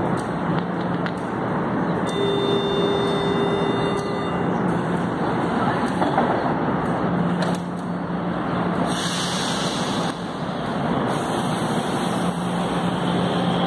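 Electric commuter train standing at a platform, its equipment giving a steady hum, with a brief set of steady tones a couple of seconds in and a hiss starting about nine seconds in, around when its doors shut.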